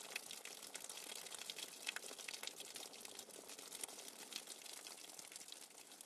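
Rainwater falling fast and hard, a steady pouring hiss made of many small drop ticks and splashes.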